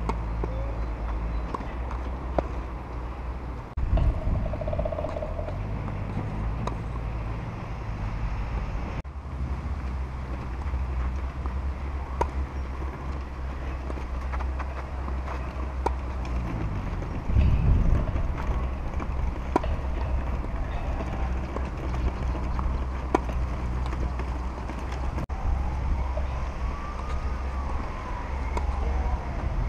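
Tennis ball struck by racquets in a rally, sharp single pops every second or few seconds. Heavy wind rumble on the microphone runs under them and surges twice. Near the end a faint tone rises and falls.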